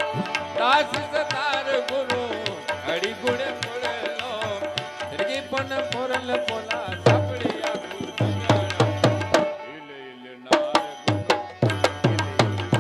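Live Indian folk music accompaniment: hand drums play a fast, even rhythm, with a wavering melody line over them for the first half. The drumming then carries on alone, stops for about a second near ten seconds in, and starts up again.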